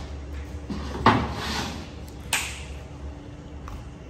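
A few knocks and clatters, the loudest about a second in and another just after two seconds, over a steady low hum.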